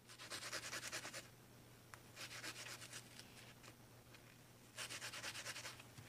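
Small metal switch contact disc scrubbed against a red abrasive pad, cleaning corrosion off it. It comes in three spells of rapid back-and-forth scratching strokes: at the start, in the middle, and near the end.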